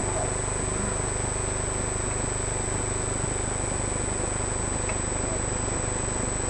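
Steady electrical hum and hiss with a constant high-pitched whine, unchanging throughout.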